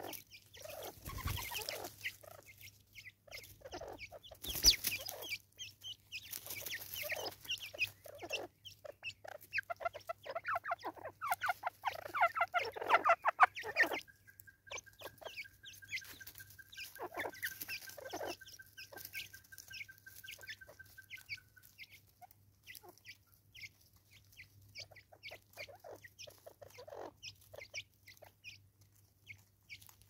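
Natal spurfowl feeding at a seed tray on a wooden stump: repeated quick pecking taps with soft fowl-like clucking, and two louder knocks in the first five seconds. A thin, steady high trill runs from about a quarter to two-thirds of the way through.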